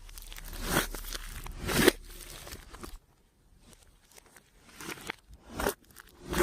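Clear slime being squished and pressed, giving short crackling, popping squelches about once a second, with a quieter pause in the middle.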